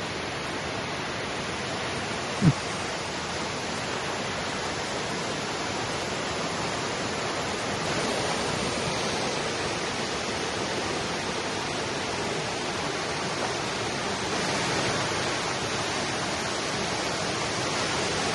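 Waterfall: a steady rush of falling water, with a single brief low thump about two and a half seconds in.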